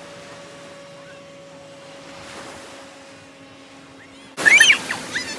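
Steady rushing surf-and-wind noise with a faint low hum. About four seconds in, the sound jumps abruptly to loud, high-pitched cries over the surf.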